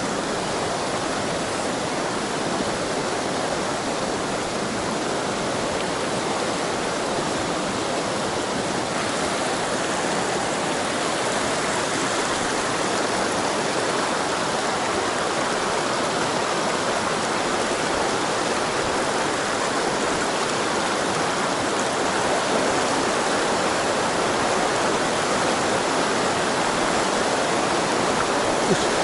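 Rocky mountain stream rushing and splashing over boulders in a steady, unbroken rush of water.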